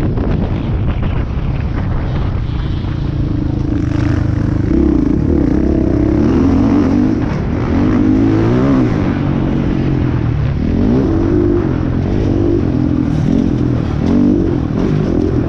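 Motocross dirt bike engine running hard under the rider, its pitch rising and falling over and over as the throttle is opened and closed and the gears change.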